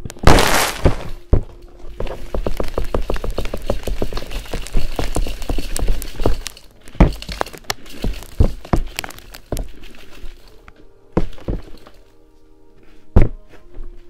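A bagless vacuum cleaner's clear plastic dust canister being emptied into a plastic tub. A loud snap about half a second in, then a long run of rapid knocks and rattles as the canister is shaken and tapped to free packed dirt, then a few separate knocks, the last loud one near the end.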